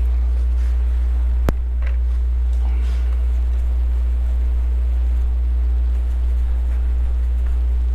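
A steady low hum with a fainter steady tone above it, and one sharp click about one and a half seconds in.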